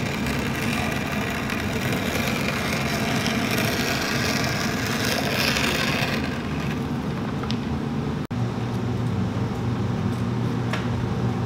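Electric shoe-repair machine running with a steady motor hum and hiss. The sound breaks off sharply about eight seconds in and picks up again as a lower, steadier hum.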